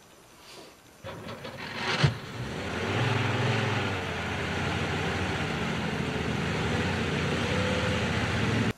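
A short knock, then a car engine starts up and runs steadily before cutting off abruptly near the end.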